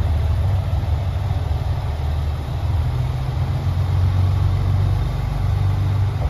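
Diesel engines of a JR Shikoku 2000 series railcar running as the train pulls away: a steady low rumble.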